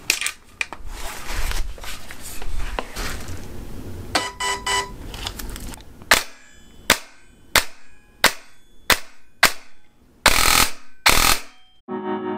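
Umbrella Armory OCAW CQB-R airsoft electric rifle (AEG) being test-fired: about six single shots roughly two-thirds of a second apart, then two longer bursts near the end. Handling noise comes before the shots.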